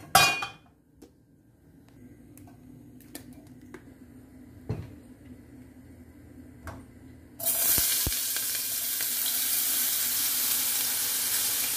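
Finely chopped vegetables tipped from a food-chopper bowl into hot oil in a saucepan, which bursts into a loud, steady sizzle about seven seconds in as they begin to sauté. Before that there are only a few light knocks of the pan and utensils on the gas hob.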